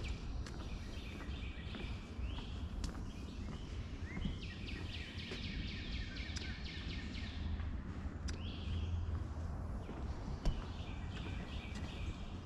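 Songbirds singing and calling, with repeated chirps and a rapid trill in the middle, over a steady low rumble and a few sharp knocks.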